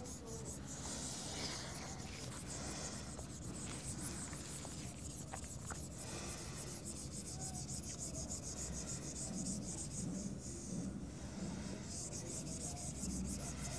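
Steady rubbing and scraping of an eraser wiping out handwritten working, with a few light ticks.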